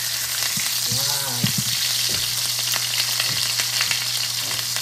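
Salmon fillet frying in hot oil in a pan: a steady sizzle with small crackles and pops.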